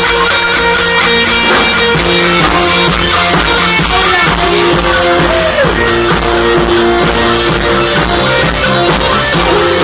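Rock band playing live: electric guitars, bass guitar, drums and keyboard, with a male lead vocal singing over them.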